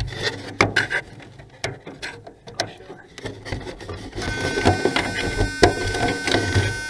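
Clicks, knocks and rubbing from hands handling a model airplane's airframe close to the onboard camera. From about four seconds in a steady high-pitched whine joins the handling noise.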